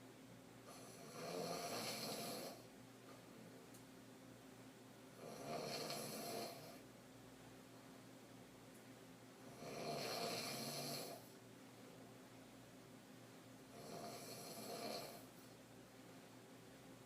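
A sleeping woman snoring deep open-mouthed throat snores, four in a row, each lasting a second or two and coming about every four seconds.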